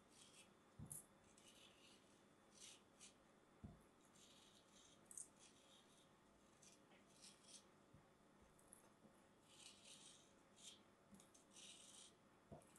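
Packed kinetic sand scraped and crumbled between fingers: faint, gritty scratching in a string of short strokes, with a few soft low bumps.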